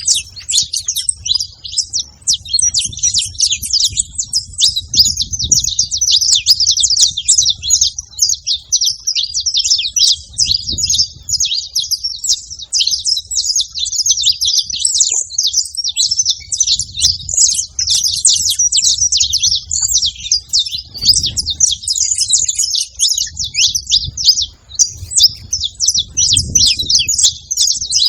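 Several saffron finches chirping and singing together in a dense, unbroken chatter of high, quick notes.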